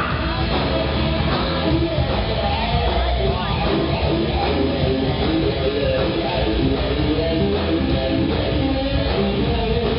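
Live rock band playing an instrumental passage: electric guitars over bass and drums.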